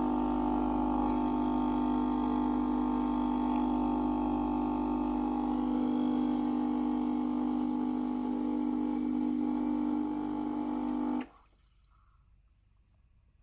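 Gaggia Viva Deluxe espresso machine's vibratory pump humming steadily as it pushes water through to prime the machine, switched off suddenly about eleven seconds in.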